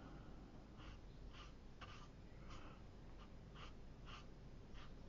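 Faint short strokes of a round watercolour brush on paper, about eight of them, unevenly spaced, as paint is laid into a sky.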